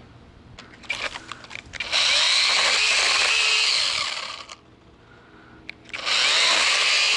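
Kobalt 24-volt 6-inch cordless chainsaw running in two bursts cutting wood, the first about two seconds long and the second starting about six seconds in. A few cracks come just before the first burst.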